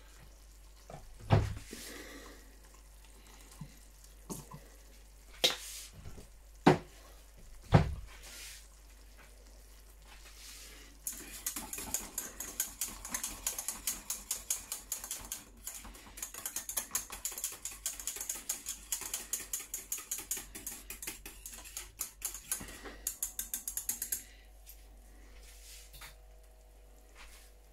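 Sauce being stirred briskly in a small metal saucepan, the utensil clicking rapidly against the pan for about thirteen seconds from about eleven seconds in. Before that come a few single sharp knocks.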